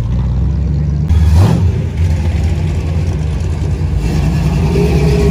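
Classic cars' engines rumbling loudly as they drive slowly past, with a short burst of louder engine noise a little over a second in.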